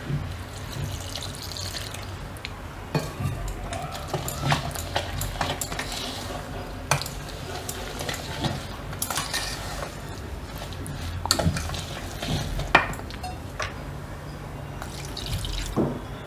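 Wire whisk stirring a thick millet-and-yogurt batter in a stainless steel bowl, with irregular clinks and scrapes of the wires against the steel. Water is added and splashes as it is whisked in.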